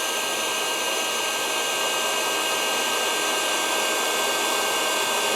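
Electric heat shrink gun running on its low setting, a steady blowing fan noise with a thin whine, heating a solder-seal heat shrink connector.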